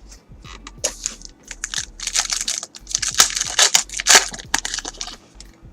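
Foil trading-card pack wrapper crinkling and tearing, with cards clicking and sliding against each other as they are handled, in quick irregular bursts.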